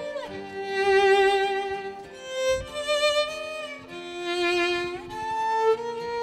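A violin playing a slow melody in long held notes with vibrato and gliding slides between them, over a guitar accompaniment: the instrumental introduction before the vocals of a live folk-song performance.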